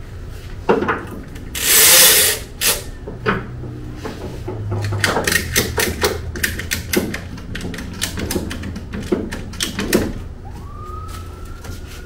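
Retractable ratchet strap being set and tightened. The webbing zips out about two seconds in and the hooks clack into place, then the ratchet lever is pumped in a run of quick clicks. Near the end a single rising tone comes in and holds.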